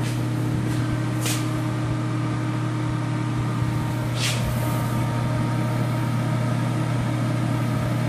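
ProTemp Sun-Stream PT-70-SS radiant kerosene heater's fan motor running with a steady hum at start-up, before ignition. Two brief hisses come through, about a second in and again around four seconds in.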